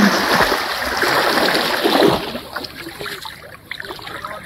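Water splashing as a person moves about in waist-deep river water, loudest for the first two seconds, then dying down to scattered trickles and drips.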